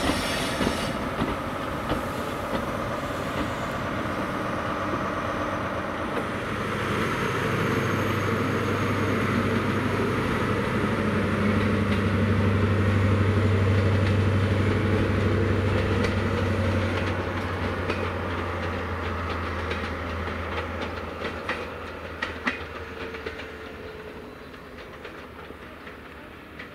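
First Great Western HSTs at speed: wheels clattering over the rail joints as one train runs by, then a Class 43 power car's diesel engine running with a deep steady drone. The drone builds to its loudest about halfway through and fades as the train draws away.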